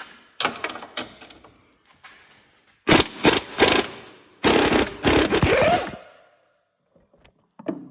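Sharp clanks of metal tools, then loud scraping and clattering as the camera and work light are knocked down and tumble, ending suddenly after about six seconds.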